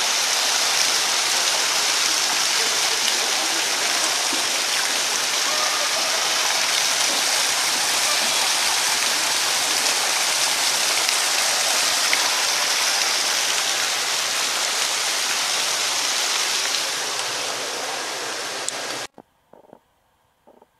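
Water spilling over the rim of a fish tank in a small fall and splashing into a shallow pool below: a steady, loud rushing splash that cuts off suddenly near the end.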